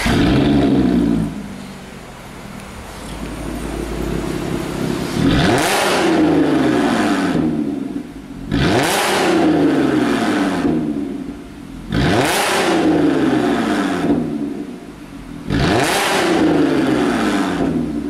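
Audi S4 B8's 3.0-litre supercharged V6 free-revving through an Armytrix aftermarket exhaust on a stationary car. It is blipped about five times, each rev climbing quickly and falling back more slowly to idle.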